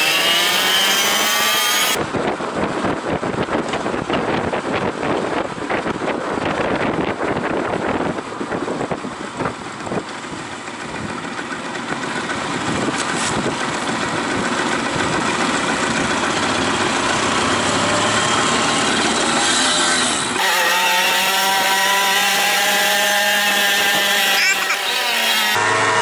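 Moped engines running, cut together from several clips: a long rough stretch of engine noise, then engines whose pitch rises and falls as they rev, starting about twenty seconds in.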